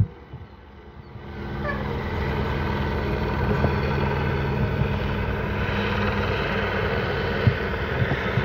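A steady low mechanical drone, engine-like, quieter for the first second or so and then constant, with a short faint knock near the end.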